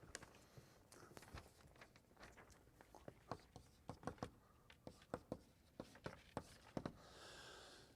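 Faint, irregular taps and clicks of chalk writing on a blackboard, with a soft hiss near the end.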